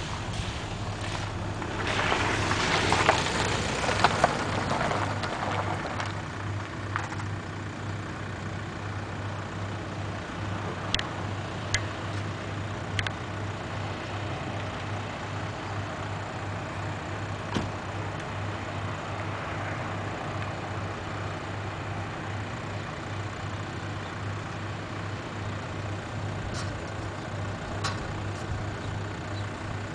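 Car ferry's engine running steadily across the river with a low, pulsing hum as the ferry pulls away from its landing. A louder rush of noise comes in the first few seconds, and a few faint clicks are heard later.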